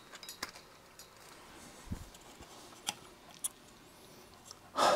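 A few light clicks and taps, and one soft low knock, as a circuit board and small parts are handled and set down on a workbench.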